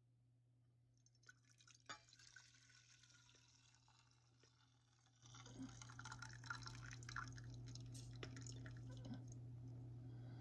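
Water poured from a ceramic slow-cooker crock into a stainless steel saucepan. A few faint clinks come first, then from about five seconds in a steady stream of water runs into the pan.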